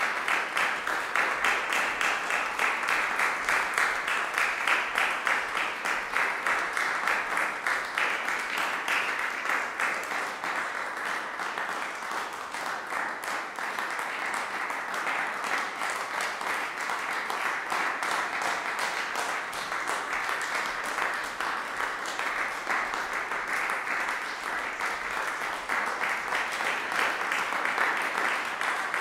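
Audience applauding: steady, dense hand-clapping that eases a little in the middle and picks up again near the end.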